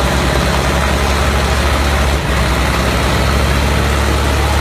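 Diesel farm tractor engine running steadily under load with a heavy low drone.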